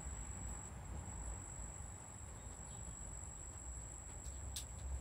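Quiet outdoor background: a steady high-pitched insect trill over a low rumble.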